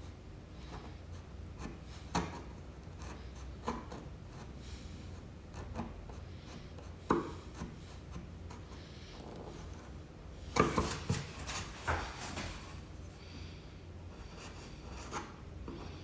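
Hand chisel scraping dried glue off the wooden door, in short separate strokes with pauses between, and a quick run of several strokes about two-thirds of the way through.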